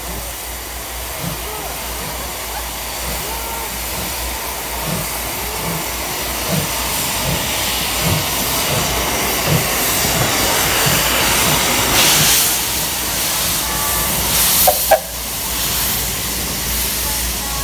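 Steam locomotive pulling away, steam hissing loudly from its cylinder drain cocks over low exhaust chuffs that come faster as it gathers speed. Louder gusts of steam come about twelve seconds in and again just before fifteen.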